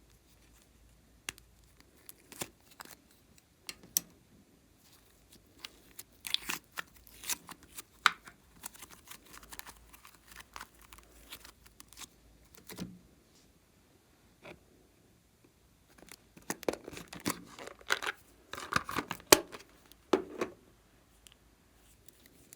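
Slime being worked by hand: scattered sticky clicks and crackles, with a dense run about a quarter of the way in and a longer, louder run a few seconds before the end.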